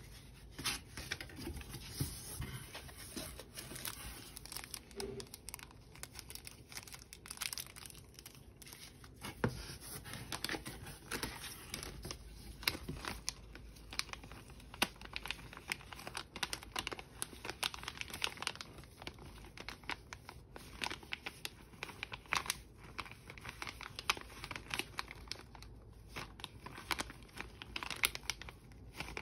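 Packaging being handled and unwrapped, crinkling and tearing in many quick, irregular crackles.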